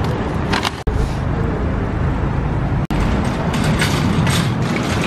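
Steady low rumble of road traffic outdoors, cut off sharply for an instant twice.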